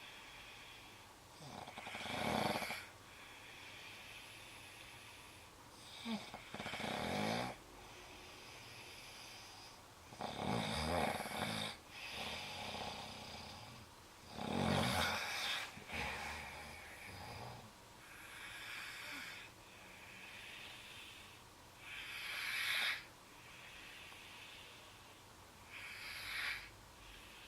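A sleeper snoring heavily in uneven breaths. The loudest snores come roughly every four seconds, with quieter breaths between them and a longer lull about halfway through.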